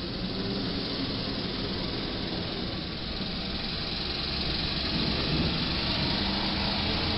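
Box truck's diesel engine running as it pulls slowly forward, mixed with traffic noise. The sound grows louder about five seconds in.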